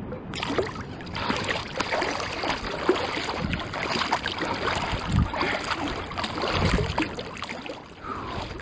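Shallow salt water splashing and sloshing irregularly as a striped bass is held in it to recover before release, with a couple of heavier splashes about five and six and a half seconds in.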